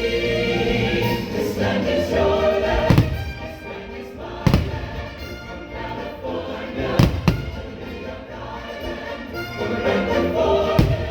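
Choral and orchestral patriotic music from the fireworks show's soundtrack, with firework shells bursting in sharp bangs about four times over it.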